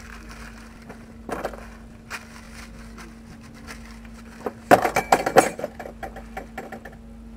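Metal tools and parts clinking and knocking during roadside brake-drum work, with a brief run of sharp, ringing metal clatter about five seconds in.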